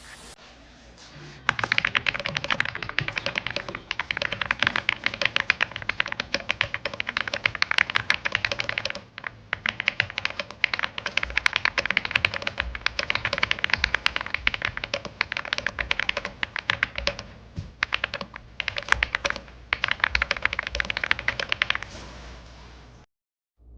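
Fast typing on an AULA F99 mechanical keyboard: a dense stream of key clacks that starts a second or so in, with brief pauses about 9 and 17 seconds in.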